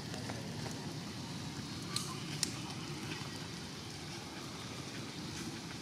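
Steady rain falling on rainforest foliage, with two sharp drip clicks about two seconds in.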